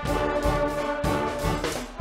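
Guggenmusik band playing: loud brass (trumpets and trombones) over a steady drum beat, with a brief break just before the end.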